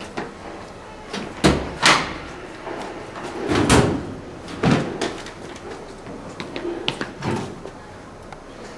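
A series of about half a dozen sharp bangs and slams, as doors and metal school hallway lockers are banged open and shut.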